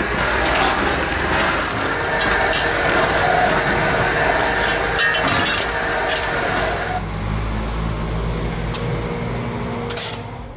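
Heavy machine's engine running under load, with scattered sharp knocks and cracks from the work; the engine's low hum comes through more clearly about seven seconds in.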